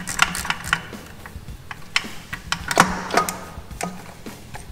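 Quarter-inch ratchet clicking in short, uneven runs as a starter bolt is backed out.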